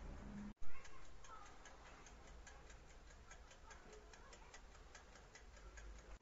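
Mechanical oven timer ticking steadily, about four ticks a second, after a short loud knock about half a second in.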